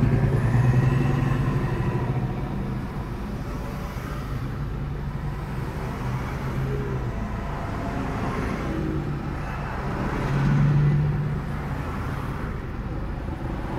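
Car engine idling, heard from inside the cabin, with road traffic around it; a low engine hum swells louder for about a second, about ten seconds in.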